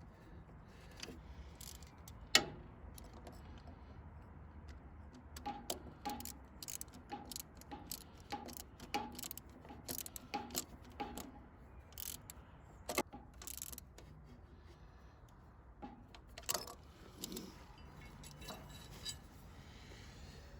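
Metal hand tool working the screw of a radiator hose clamp as it is tightened: a run of light metallic clicks and taps, with one sharper knock about two seconds in.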